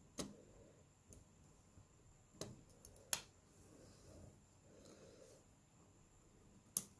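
Small hand tools and parts clicking and tapping against a disassembled Samsung Galaxy S4 smartphone: four sharp clicks spread over several seconds, the loudest near the end, with faint handling rustle between.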